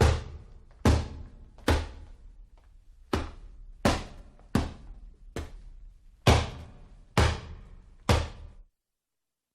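Boxing punch sound effects: about ten sharp, heavy hits landing one after another at an uneven pace, then stopping shortly before the end.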